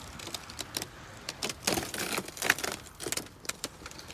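Pieces of a smashed TV screen clinking and crackling as the screen is peeled away: a run of irregular sharp ticks and clicks.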